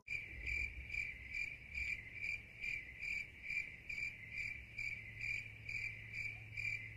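Crickets chirping in a very even rhythm, a little over two chirps a second, with a steady low hum underneath.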